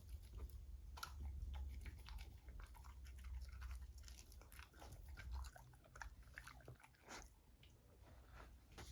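A beagle chewing and licking at its food, with quiet, irregular wet clicks and smacks.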